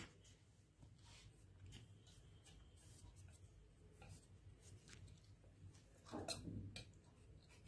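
Near silence with faint scratchy sounds of a wire whisk stirring cake batter in a steel bowl, briefly louder about six seconds in.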